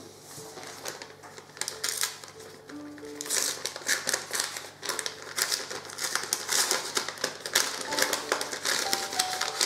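A large paper envelope being handled and opened, its paper rustling and crinkling in many quick crackles, with faint background music of held notes underneath.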